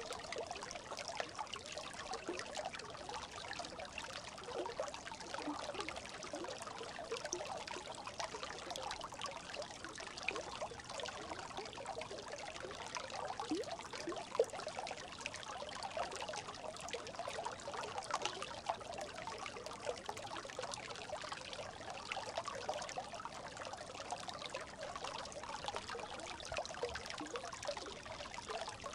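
Brook babbling, a steady trickling and gurgling of running water, with one brief louder blip about halfway through.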